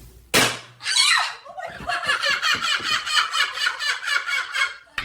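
A short sharp burst of noise, then high-pitched, rapid laughter, an even run of about five 'ha's a second that stops just before the end.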